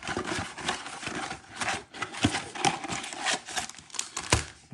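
Cardboard trading-card box being opened and its card packs handled: a run of rustles, scrapes and small taps, with one sharper tap near the end.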